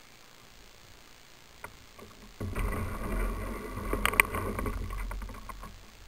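Kayak being hauled through shallow floodwater: a noisy rush of splashing and hull scraping that starts suddenly about two and a half seconds in and lasts about three seconds. There are a few sharp knocks just after the middle, the loudest sound in the stretch.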